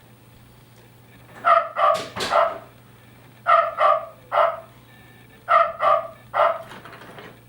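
Yorkie cuckoo clock's recorded barking as the little Yorkie pops out for its top-of-the-hour call: three sets of three quick yaps, about two seconds apart.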